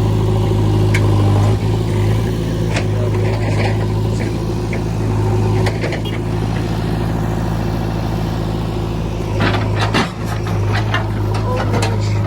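JCB backhoe loader's diesel engine running at a steady speed, with scattered metallic clanks and knocks. A burst of knocks comes about nine and a half to ten seconds in.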